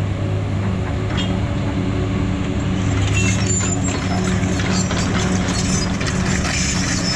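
An engine running steadily with a low hum, with a few sharp clicks over it.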